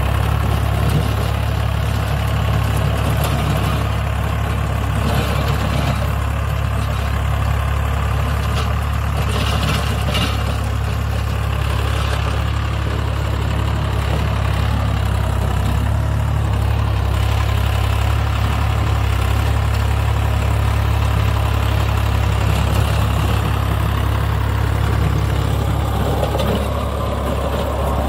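Swaraj 855 FE 4WD tractor's three-cylinder diesel engine running steadily under load, a constant low drone, as it pulls a PTO-driven rotavator tilling dry soil.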